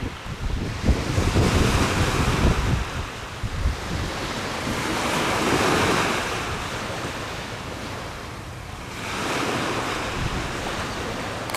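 Gusty wind buffeting the microphone, a rushing noise that swells and eases, with no engine or horn standing out.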